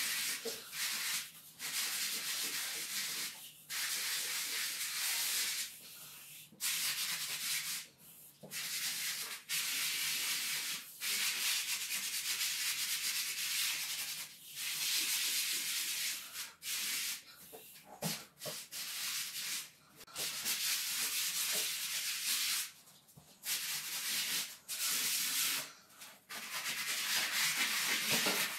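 Hand sanding a painted wall with a piece of sandpaper: a hiss of rubbing strokes in runs of one to a few seconds, with short pauses between. The filled round patches and the thickened paint edges around them are being smoothed so the circles won't show through the next coat of paint.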